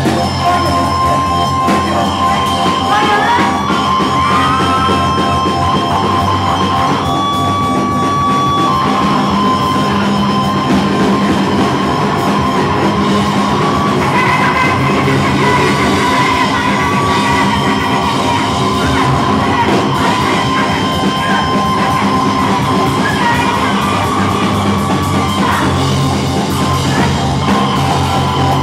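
Loud live noise music: a dense, unbroken wall of distorted sound with high whining tones that slide and shift in pitch.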